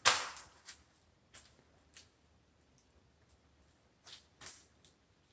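Faint footsteps on floors covered with protective construction paper: a short rustle at the start, then a few soft clicks about half a second apart, and two or three more near the end.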